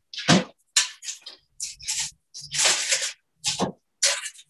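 A quick run of about eight short rustling, crinkling handling noises, with a low hum under some of them in the second half.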